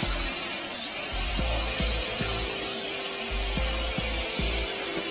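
Flexible drain-cleaning shaft spinning inside a drain pipe, turned by a cordless drill and scraping hardened epoxy off the pipe wall: a steady, harsh scraping with a few low knocks.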